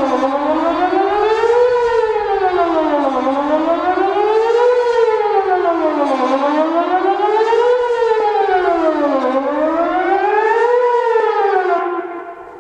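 Whelen WPS 2810 electronic outdoor warning siren sounding a wailing tone, its pitch gliding smoothly up and down about every three seconds. The tone cuts off shortly before the end.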